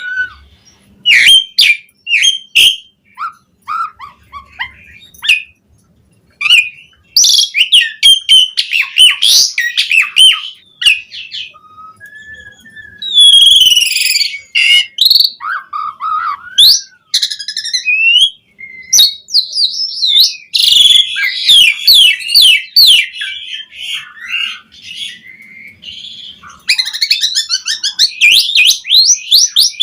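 Asian pied starling (jalak suren) singing a long, varied song of whistles, slurred notes and rapid chattering runs, with a few short pauses between phrases. This is a bird in full song with its repertoire of added phrases.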